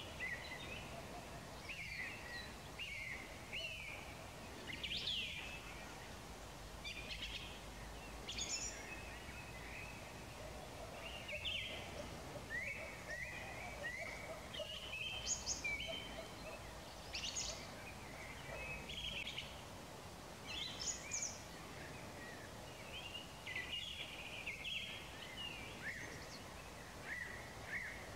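Songbirds singing at dusk: short, high chirping phrases, many of them quick slides in pitch, repeating every second or so over a faint steady background hiss.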